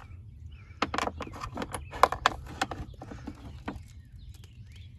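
Loose items in a glove box clattering and clicking as a hand rummages through them and lifts out a rail of metal sockets. The sharp clicks and knocks begin about a second in and die away just before four seconds.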